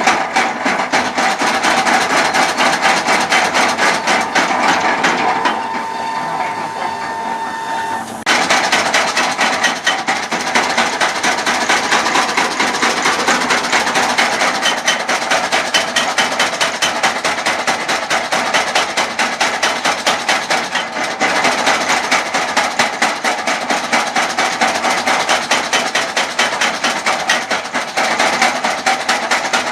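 Mechanical blacksmith's forging hammer pounding metal in a rapid, steady rhythm of blows, with a steady whine over the first eight seconds; the blows get louder about eight seconds in.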